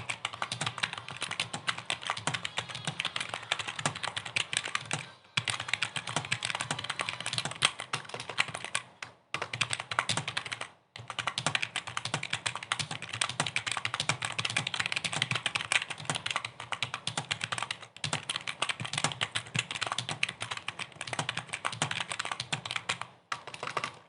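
Fast, continuous typing on a computer keyboard, a rapid stream of key clicks broken by a few short pauses.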